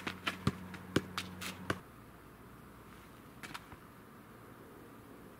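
Football being juggled: a quick series of dull knocks as the ball strikes foot and knee, about seven touches in the first two seconds, then a couple of faint taps a little later while the ball rests on the back of the neck.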